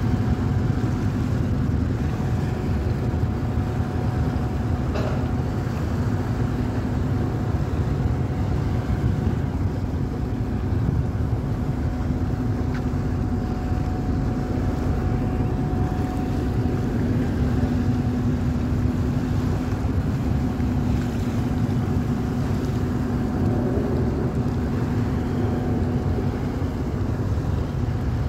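Large passenger ship's engines and propellers running as it moves off: a steady low rumble with a steady hum, over the churning of its propeller wash against the quay and wind on the microphone.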